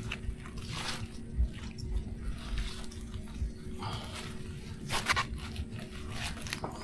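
Light water splashing and handling noises with a few soft knocks, over a faint steady hum.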